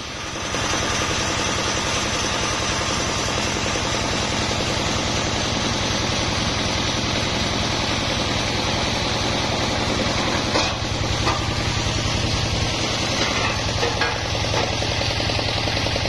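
Bandsaw mill's engine running steadily with a fast, even pulse, not under cutting load. A few light knocks come in from about ten seconds in.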